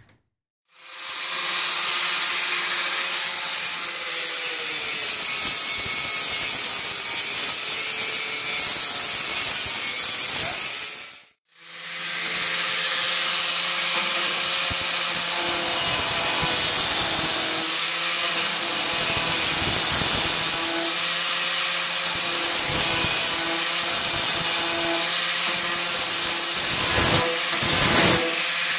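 Angle grinder running steadily with its disc grinding the metal of a 1969 Dodge Charger's front end panel at a grille opening. The sound breaks off once, briefly, partway through.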